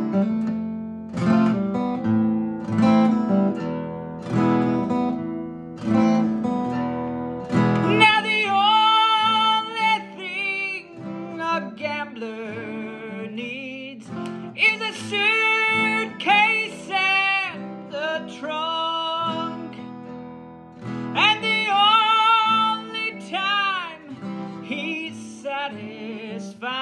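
An acoustic guitar plays chords alone for about eight seconds, then a man's voice sings a verse over the guitar.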